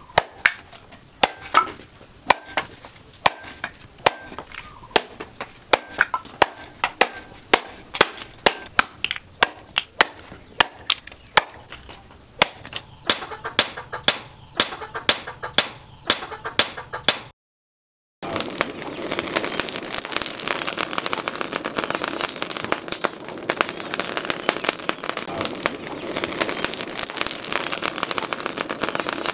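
A run of sharp chops, about one or two a second, from a steel cleaver cutting through bamboo on a wooden block. About halfway through, after a brief silence, it gives way to a charcoal forge fire: a steady rush of dense crackling from the burning coals.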